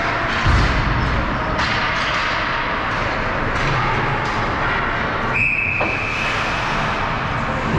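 Ice hockey rink game noise: a steady wash of arena sound with sharp stick-and-puck clacks and a low thump about half a second in. About five seconds in, a referee's whistle blows once, a short high blast.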